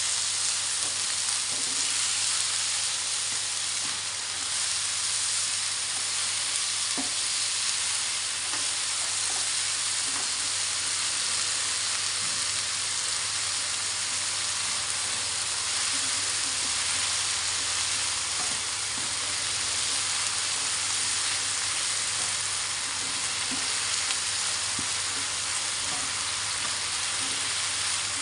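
Long beans and carrots sizzling steadily in hot oil in a ceramic-coated wok, stir-fried until tender, with a few light scrapes and clicks of a metal slotted spoon stirring them.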